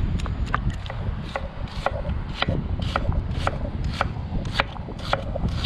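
Kitchen knife chopping red onion on a wooden cutting board, with sharp, even strokes about two a second.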